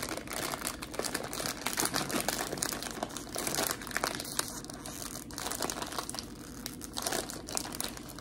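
Plastic snack bag of ketchup potato chips crinkling and crackling as it is handled and opened.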